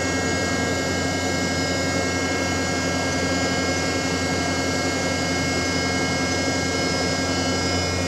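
Ship's deck crane machinery running steadily: a constant hum with several steady whining tones above it, and no change in pitch or level.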